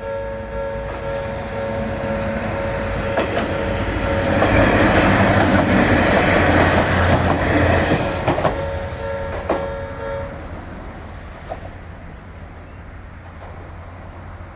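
Electronic level-crossing alarm of the rare old Odakyu type, a steady multi-tone ringing, sounds while a Kominato Railway diesel train passes over the crossing, its wheels clacking over the rail joints. The alarm cuts off about ten seconds in as the crossing clears, and the train's sound fades away.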